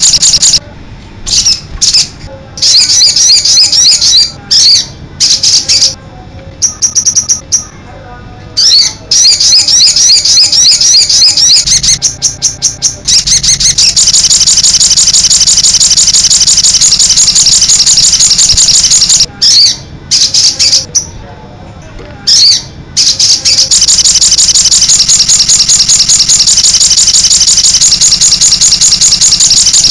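Crested jay (sogon) calling in a loud, fast, high-pitched chatter, broken off by short pauses several times in the first nine seconds and again around twenty seconds in.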